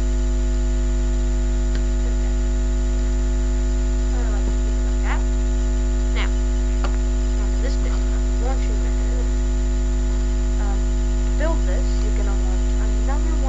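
Loud steady electrical mains hum: a deep drone with several steady higher tones over it. Faint short chirp-like sounds and a few clicks are scattered through it.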